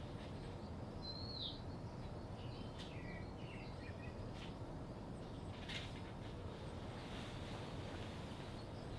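Birds chirping and calling now and then, including one short falling whistle about a second in, over a steady low ambient hum.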